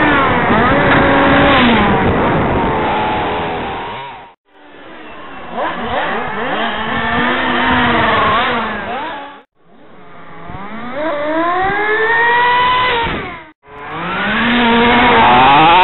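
Engines of radio-controlled racing cars revving up and down, their pitch climbing again and again as they accelerate, heard up close from a camera mounted on one of the cars. The sound cuts out for a moment three times.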